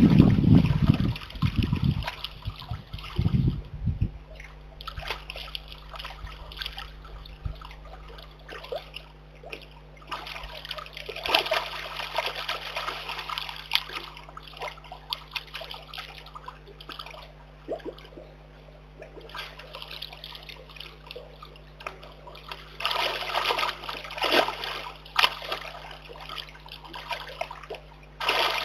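Brown bear cub splashing and sloshing in a shallow muddy pool, with trickling water between bursts of splashing about a third of the way in and again near the end. A low rumble fills the first two seconds.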